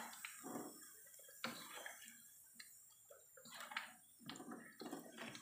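A handful of light clicks and taps of a wire spider strainer and a slotted spatula against each other and the wok as fried meatballs are lifted out of the oil, over a faint sizzle of hot oil.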